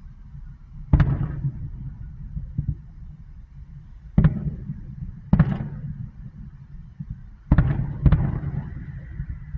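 Aerial fireworks shells bursting: five loud bangs a second or more apart, the last two close together near the end, each trailing off in a low rumble.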